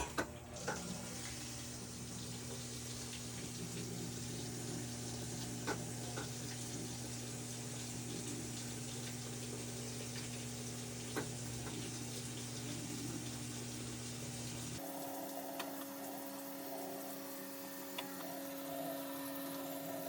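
Whirlpool/Maytag washer running, with a steady rush of water like filling and a steady low hum; about 15 seconds in the hum abruptly shifts higher in pitch.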